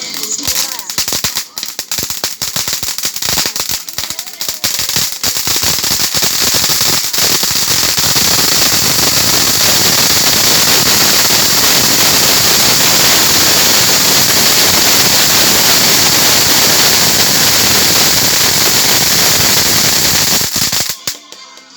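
Firecrackers going off: scattered sharp pops that come faster and faster, then run together into a dense, continuous crackle for about fourteen seconds before cutting off suddenly near the end.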